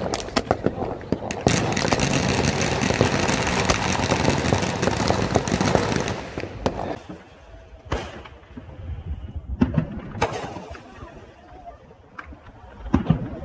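Consumer fireworks going off: a few seconds of continuous hissing and crackling, then several separate sharp pops spaced a second or more apart.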